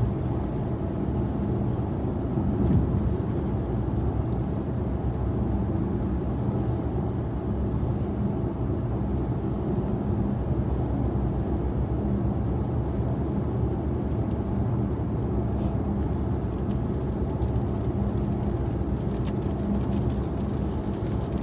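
Steady road and engine noise inside a vehicle's cabin, driving at highway speed.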